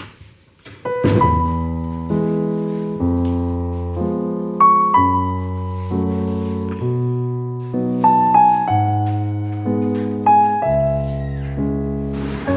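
Background piano music: a slow piece of struck, fading chords with a melody on top, the harmony changing about once a second. It comes in about a second in.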